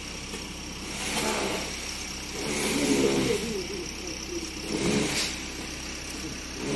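An engine running and revving up and down in spells, with two short scrapes of shovels working soil and rubble.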